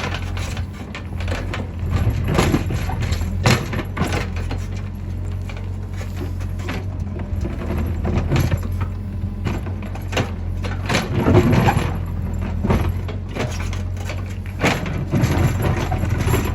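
Caterpillar 432F2 backhoe loader's diesel engine running steadily, with irregular knocks and clanks as the machine works.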